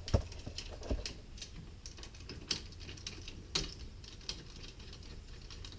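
Irregular light metallic clicks and taps of bolts and hand tools as the brake caliper bolts are put back in, a few sharper clicks standing out among them.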